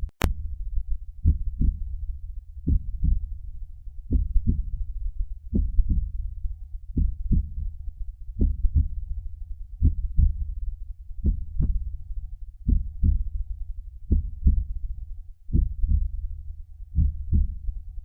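Heartbeat sound effect: a slow, steady heartbeat, each beat a pair of low thumps about a third of a second apart, repeating roughly every second and a half. One sharp click just after the start.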